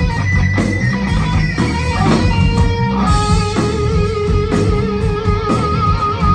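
Live rock band: electric guitar playing a lead line over bass guitar and drums. About halfway in, the guitar settles on a long held note that wavers with vibrato near the end.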